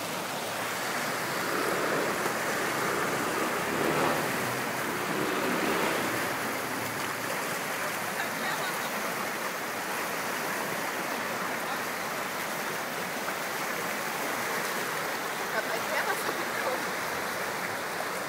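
Whitewater rapids of a fast-flowing river: a steady, continuous rush of churning water.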